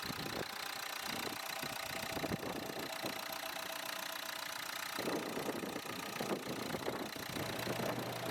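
Renault Laguna's 1.5-litre eight-valve turbodiesel four-cylinder idling steadily.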